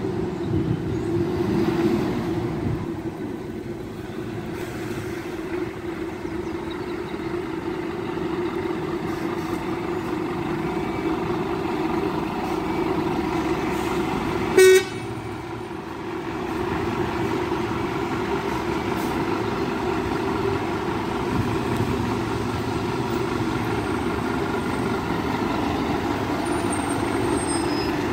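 Scania P280 fire engine's diesel engine running steadily as the appliance pulls slowly away and comes closer, with one short, loud horn toot about halfway through.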